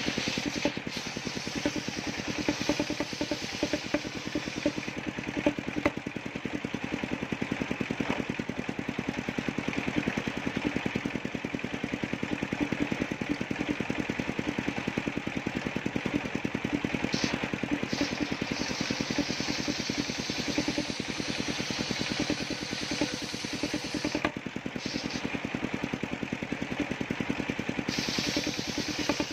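Engine-driven homemade circular table saw running steadily with an even, rhythmic engine beat, while planks are ripped lengthwise through the blade; a higher cutting noise comes and goes as each pass starts and ends.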